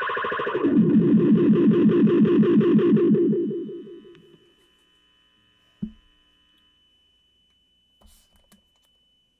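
Distorted electric guitar (Fender Stratocaster) ending a phrase: a high note drops to a low note that pulses rapidly and rings out, fading away by about four seconds in. A single knock follows near the six-second mark, and light handling noise around eight seconds in.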